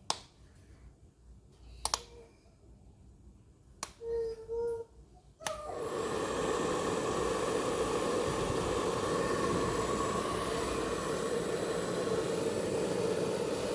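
A few sharp clicks and a brief hum, then, about five and a half seconds in, a Moser hair dryer switches on and blows steadily: a rush of air with a hum from its motor.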